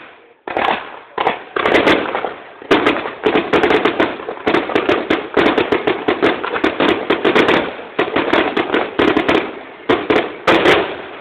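Aerial fireworks exploding in a rapid, near-continuous barrage of bangs and crackling, with several sharp cracks near the end.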